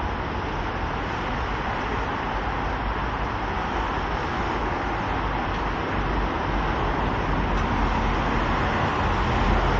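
Steady road traffic noise of a city street, a continuous rushing hum that grows slightly louder toward the end.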